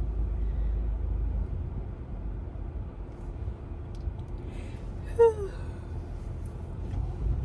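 Low steady road and engine rumble inside a moving car's cabin. About five seconds in there is one short vocal sound that falls in pitch.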